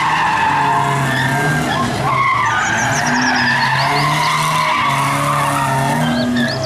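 Cars drifting on asphalt: tyres squealing and skidding continuously over engines revving up and down.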